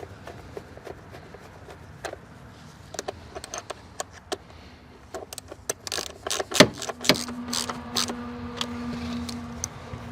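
A run of sharp clicks and light knocks, then two heavy thuds about six and seven seconds in, followed by a steady low hum.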